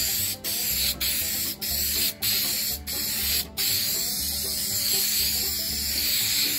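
Aerosol can of 3M Super 77 spray adhesive spraying. The hiss comes in short passes broken by brief stops about every half second, then runs as one continuous spray from about halfway through. Background music with a steady beat plays underneath.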